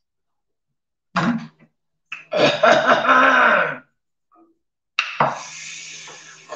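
A woman coughing and clearing her throat in several fits. A sharp cough comes about a second in, a longer, louder voiced cough from about two seconds, and another cough at about five seconds that trails off.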